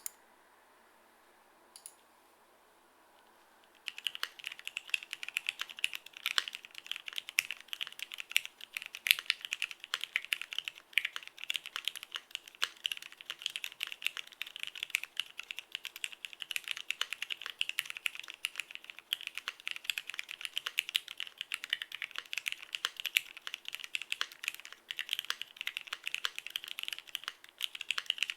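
Mechanical keyboard typing: a Keycult No.1 Rev.2 with lubed vintage Cherry MX Black linear switches on a polycarbonate plate, under tripleshot keycaps. After a single click and a few near-quiet seconds, keys are struck in a fast, continuous stream of clacks.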